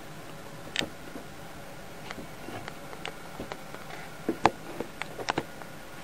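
Irregular light taps and clicks of a cat's paws and ceramic bowls on a wooden tabletop, about a dozen, the loudest a little past the middle.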